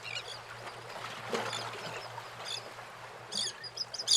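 Birds chirping in about five short, high bursts spread through these seconds, over a steady background hiss.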